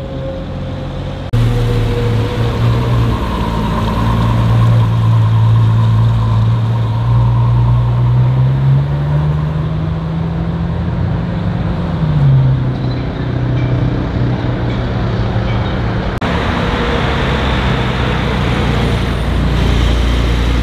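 Supercar engines running at low revs in street traffic. One engine's pitch rises slowly, holds for a couple of seconds and drops back near the middle. The sound changes abruptly about a second in and again near the end.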